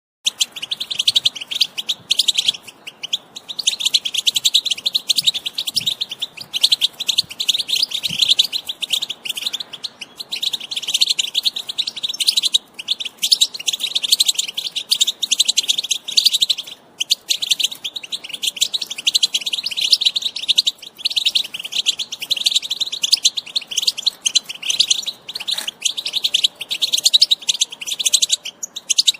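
European goldfinch singing: a fast, almost unbroken run of high twittering and chattering notes, with a few brief pauses.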